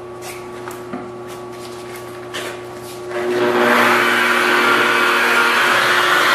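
Electric car polisher with a soft black foam pad working swirl mark remover on black paint: a steady hum with a few light taps, then about three seconds in it gets much louder, a steady whir as the pad spins against the paint.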